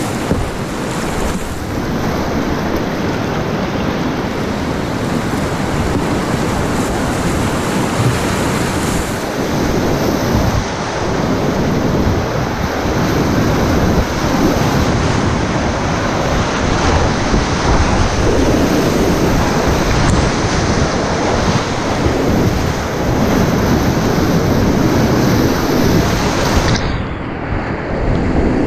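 Rushing whitewater of a river rapid, heard from a kayak running through it, with water splashing against the boat and paddle. Near the end the sound goes briefly muffled as spray washes over the microphone.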